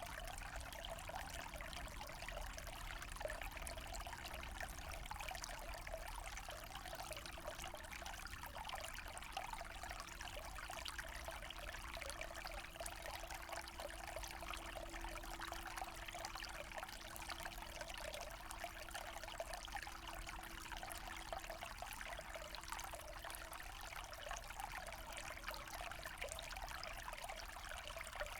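Forest stream flowing steadily: a continuous trickling rush of water with no pauses or changes.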